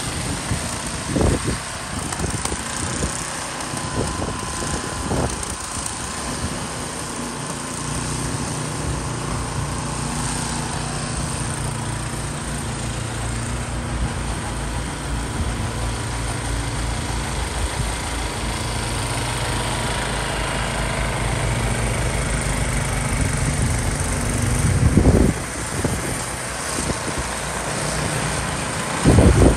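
Two gasoline snow blowers running under load, chewing through deep snow and throwing it, with a steady engine drone. Low gusts of wind buffet the microphone a few times, the loudest near the end.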